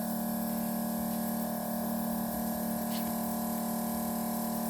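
Steady machine hum with a strong constant low tone, unchanging throughout, and a faint tick about three seconds in.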